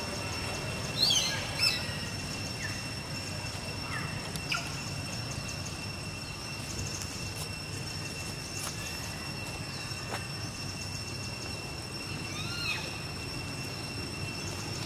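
Outdoor ambience with a few short, high chirping calls that glide up and down, the loudest about a second in and another near the end, over a steady high-pitched whine.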